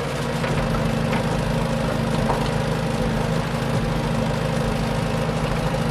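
Construction vehicle's engine running steadily while the vehicle works.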